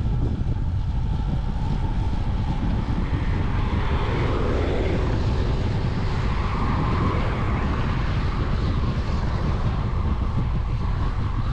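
Steady wind rumble on the microphone of a rider moving along the road, with a louder rushing swell that rises about four seconds in and fades by about eight, typical of traffic passing.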